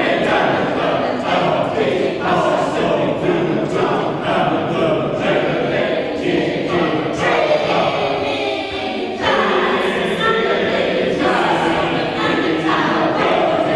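Mixed choir performing a spoken fugue: many voices chanting words in strict rhythm, entering one after another in overlapping counterpoint.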